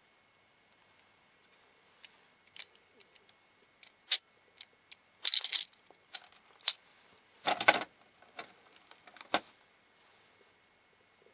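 Small plastic parts of an opened Astroswitch toy switch clicking and rattling as they are handled: a string of sharp clicks, with two brief rattling clusters about five and seven and a half seconds in and one loud click near the end.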